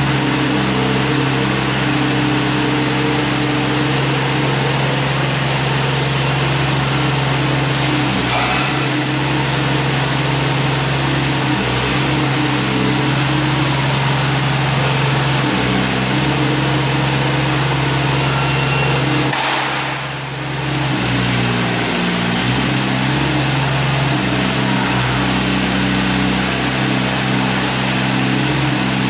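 Compact remote-controlled demolition breaker running steadily, its engine and hydraulics working as the boom is swung and raised, with no hammering. The sound dips briefly about two-thirds of the way through, then picks up again.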